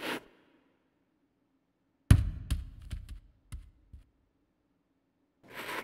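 Sound-effect knocks and taps: a heavy thud about two seconds in, then five or six lighter clicking taps over the next two seconds, with a short rush of noise swelling up near the end.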